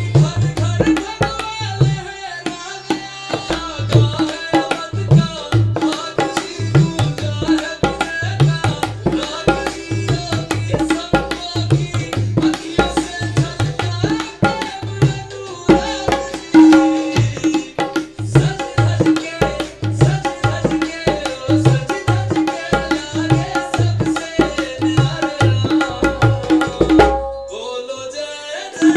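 A tabla is played by hand in a fast, continuous stream of strokes. The right-hand dayan rings at a steady pitch, and deep strokes come from the left-hand bayan. The playing thins out briefly near the end, then picks up again.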